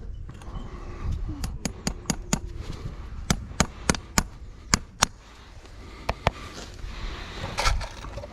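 Farrier's hammer striking metal: a quick run of about a dozen sharp blows, then two more, with a brief clatter near the end.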